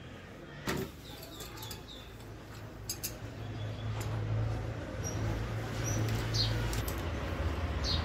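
Metal hand tools clicking against a tyre inner tube's valve as it is gripped with pliers and tightened with a spanner: one sharp click about a second in, a few lighter ones later. Short high chirps come now and then, with a low steady hum growing louder in the second half.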